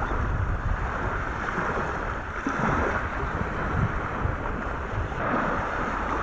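Wind buffeting the microphone over the rush of open water, a steady noise with uneven low rumbling gusts.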